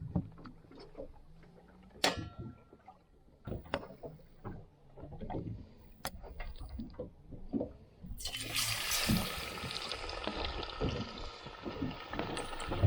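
A few scattered knocks and clicks, then about eight seconds in battered mahi-mahi fillets go into hot oil and start frying with a steady sizzle.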